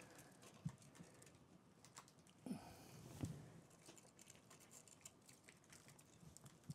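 Faint scattered ticks and light rustling of Nordmann fir branches being handled and pushed into a small wooden wheelbarrow, with a brief denser rustle about two and a half seconds in.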